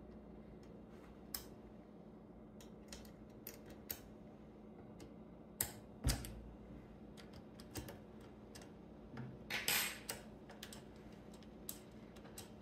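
Scattered light clicks and clacks of metal 3D-printer parts being handled as the Ender 3's hot-end carriage plate and its wheels are worked off the end of the X-axis aluminium rail. A heavier knock comes about six seconds in, and a short rattling scrape near ten seconds.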